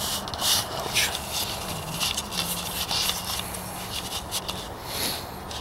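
Irregular rustling and scuffing from walking with a handheld camera, its mic rubbed and knocked, over a faint steady low hum.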